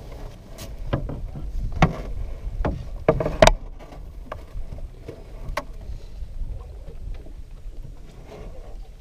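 Knocks and thumps on an aluminium canoe hull as a person stands up and climbs out of the bow, with a wooden paddle knocking against the boat. The sharpest knocks come in the first three and a half seconds, with one more about five and a half seconds in, then only light taps.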